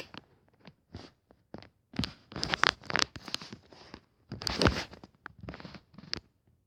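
Irregular rustling and crackling noises in short uneven bursts, loudest about two seconds and four and a half seconds in.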